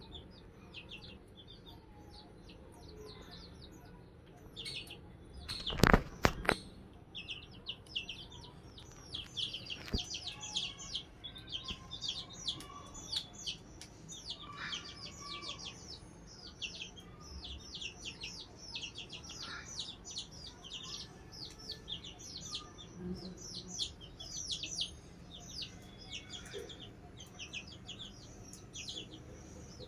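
Baby chicks peeping: a steady stream of short, high chirps, each falling in pitch, sparse at first and then many overlapping from about eight seconds in. A couple of sharp knocks about six seconds in are the loudest sounds.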